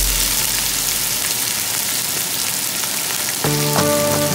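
Diced onions frying in oil in a stainless steel pot: a steady sizzling hiss with faint crackles. Background music comes back in near the end.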